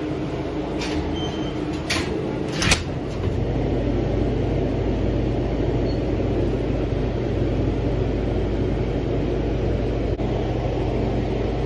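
A vehicle running with a steady low hum, with a few short sharp clicks or knocks in the first three seconds.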